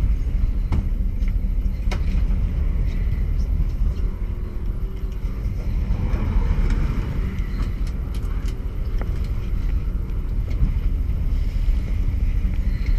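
Sportfishing boat's engines running steadily underway: a constant low rumble with the wash of the churned wake water behind the stern.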